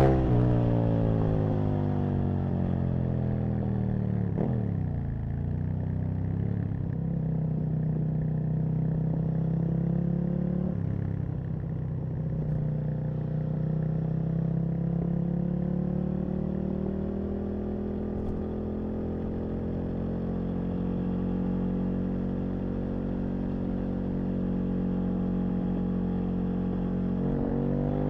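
Aprilia RSV Mille's 998 cc V-twin engine under way: revs fall for the first few seconds as the bike slows, with quick shifts in pitch at about four and a half and about eleven seconds. It then runs steadily at part throttle and revs up sharply near the end.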